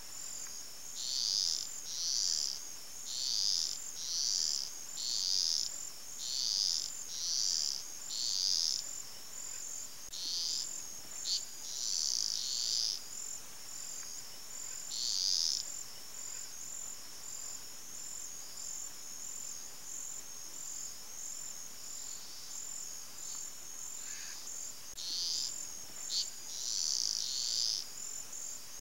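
Insects calling: rhythmic high-pitched chirps about every three-quarters of a second over a steady high drone. The chirps thin out after about nine seconds, stop for several seconds past the middle, and pick up again near the end.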